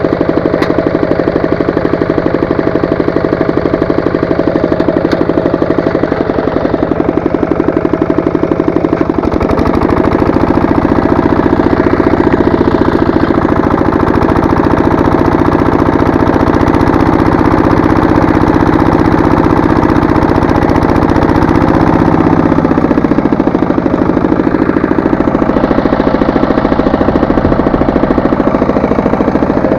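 Walk-behind tractor engine running while tilling with its rotary tiller, a steady rapid chugging; its speed rises about a third of the way in, holds, then falls back near the end.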